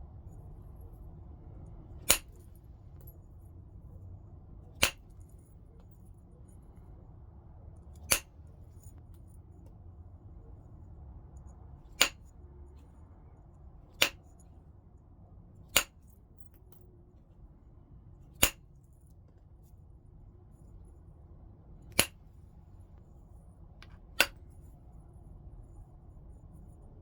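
Flintknapping: nine sharp, brief clicks at irregular intervals as flakes are detached from the stone being worked into a point, over a faint low background hum.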